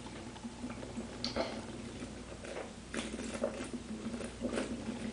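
A person chugging a drink, with a run of short gulping swallows at irregular intervals.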